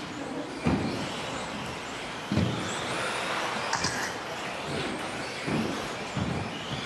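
Electric 1/10-scale 2WD RC buggies racing: a steady hiss of motors and tyres on carpet, broken by several thumps, the loudest about two-thirds of a second and two and a half seconds in.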